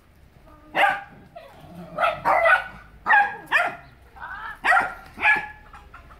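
A dog barking repeatedly: about nine sharp barks, some in quick runs of two or three.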